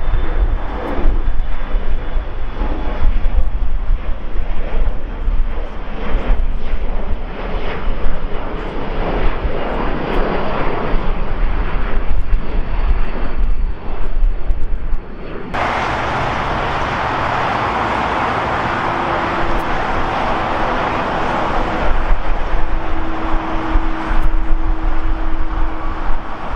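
Jet airliner engine noise in two parts. First an Airbus A350 taxiing, its engines giving an uneven rumble. Then, after an abrupt cut about halfway through, an Airbus A320-family twin-jet climbing out after takeoff, a steady engine roar with a steady hum running under it.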